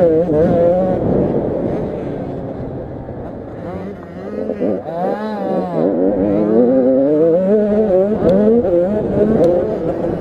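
85cc two-stroke motocross bike engines revving up and down through the gears, more than one at a time, with one engine's pitch rising and falling about halfway through.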